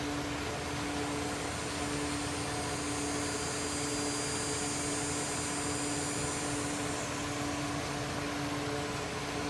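Steady background hiss with a low, even hum. From about two and a half seconds in until about seven seconds, a high, thin, steady sound with several tones sits above it.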